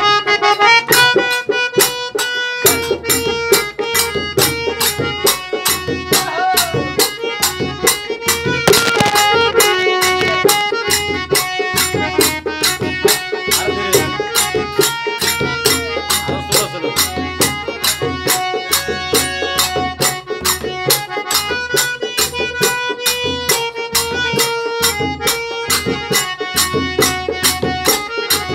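Harmonium playing held chords over a dholak drum and small hand cymbals striking a quick, steady beat, in a rustic Holi folk-song style.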